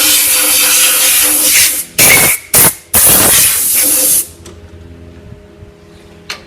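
Compressed-air blow gun hissing loudly in a few short blasts, the air cutting off a little over four seconds in. A faint steady hum remains after it.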